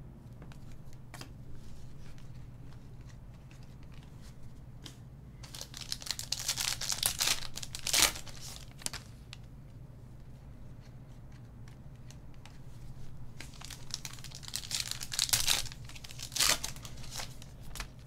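Foil Panini Select trading-card pack wrappers crinkling and tearing open, in two spells of a few seconds each, each ending in a sharp crackle.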